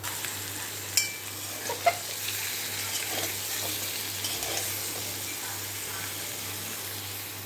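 Small whole potatoes sizzling as they fry in a pan, turned with a metal spatula that scrapes the pan and clinks sharply against it twice in the first two seconds.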